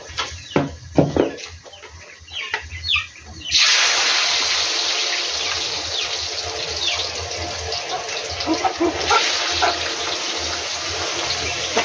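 Chickens clucking, then about three and a half seconds in a loud sizzling sets in as raw potato chips go into hot cooking oil, easing off slightly as they fry, with a few clucks still heard over it.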